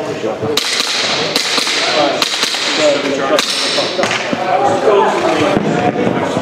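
Airsoft pistol firing: several sharp snapping shots at uneven intervals over the first three and a half seconds, with voices in the background.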